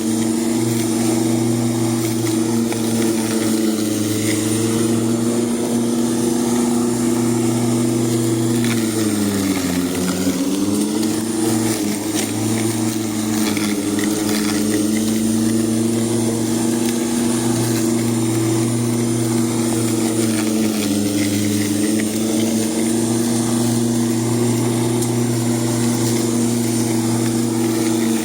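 Ozito lawn mower running steadily as it cuts long grass, with a steady hum. Its pitch sags briefly about ten seconds in, again around twenty seconds and near the end, as it takes load.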